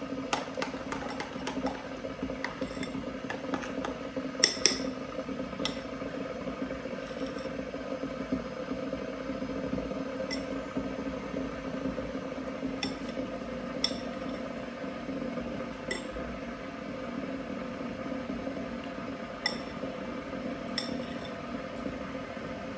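Glassware and dishes clinking as they are handled: a quick run of clinks at the start, then single clinks every few seconds. A steady low hum runs underneath.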